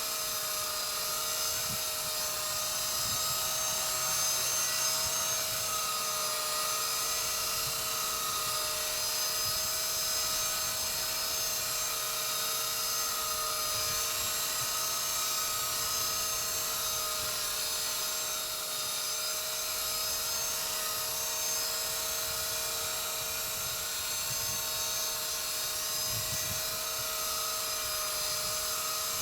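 Walkera V120D02S micro RC helicopter hovering: the electric motors and rotors make a steady high whine with two held pitches.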